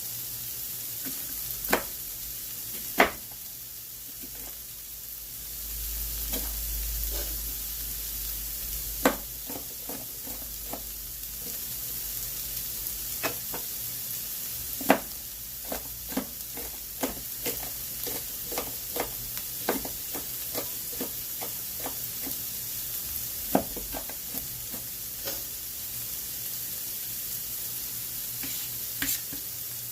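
Vegetables for a pasta sauce sizzling in a pan on the stove while being stirred, with a utensil clicking and knocking against the pan many times.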